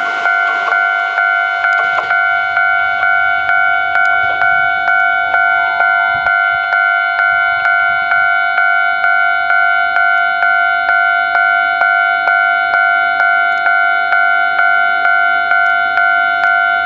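Japanese railway level-crossing warning bell ringing, an electronic ding struck evenly at about two strokes a second. A few seconds in, a faint tune from a municipal outdoor public-address loudspeaker drifts in behind it.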